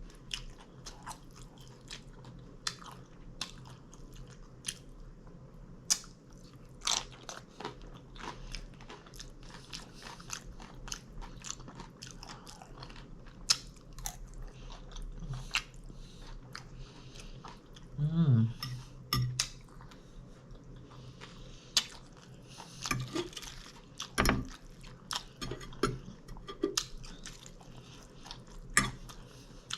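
Close-miked chewing and biting of taco salad, with scattered crisp crunches and clicks.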